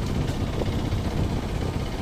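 Steady, fluctuating low rumble of wind and motion noise on the microphone while travelling along a road, with no distinct events.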